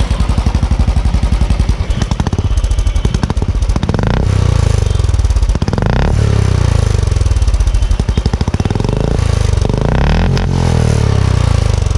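Royal Enfield Classic 350 single-cylinder engine running through an aftermarket barrel exhaust, with a heavy thumping beat at idle. The throttle is blipped about three times, rising then falling away each time.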